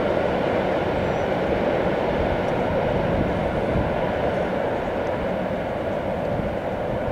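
A long train rolling across a high steel truss railway bridge: a steady rumble of wheels on the steel structure, easing off slightly toward the end.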